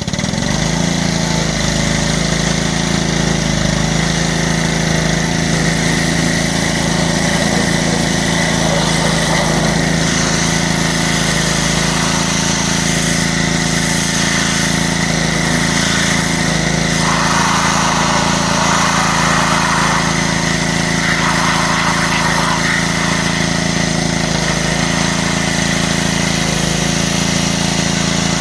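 Troy-Bilt 5 hp gasoline pressure washer engine running at a steady speed, coming in suddenly at the start.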